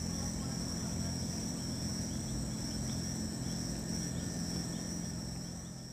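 Steady high-pitched chorus of night-calling insects, such as crickets, over a low steady hum, fading out at the end.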